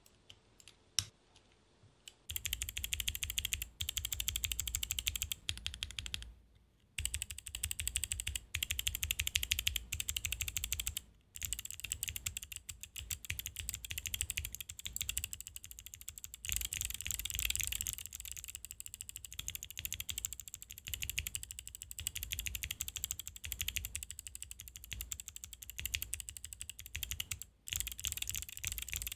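Rapid, continuous mechanical clicking that starts about two seconds in, after a few single clicks, and runs with a few brief pauses.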